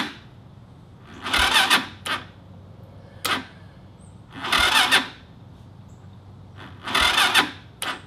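Electric starter cranking a 200cc Lifan single-cylinder four-stroke go-kart engine in four short tries, each about half a second long and a couple of seconds apart. The engine turns over but never catches: it won't start even though the owner has confirmed spark and fuel.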